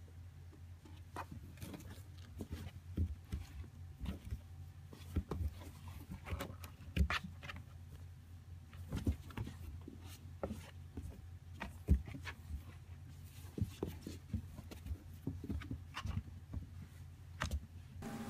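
Kittens scrabbling and bumping about inside a cardboard box: irregular scratches, taps and knocks on the cardboard over a steady low hum.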